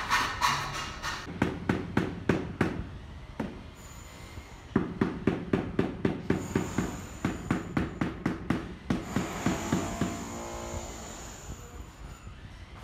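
Rubber mallet tapping a large floor tile to bed it down into the mortar, in two runs of quick, dull taps about four a second, after a short scrape of a straightedge across the mortar bed near the start.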